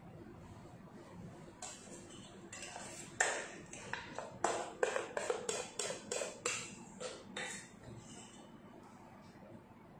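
Spatula scraping and clinking against a metal mixing bowl while scooping chocolate topping: a quick run of about fifteen sharp scrapes and clinks, starting about one and a half seconds in and stopping about two and a half seconds before the end.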